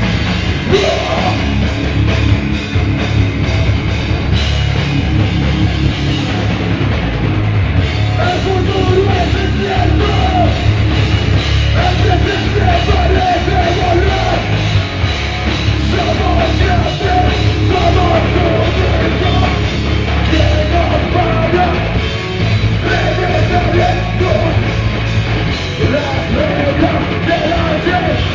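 A hardcore punk band playing live and loud: drums and distorted guitars, with a vocalist yelling over them.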